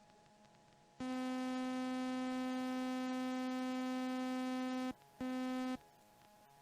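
An electronic warning tone in the cockpit headset audio of a Flight Design CTSW light-sport aircraft just after takeoff: a steady, buzzy single-pitch tone sounding for about four seconds, then again briefly after a short break.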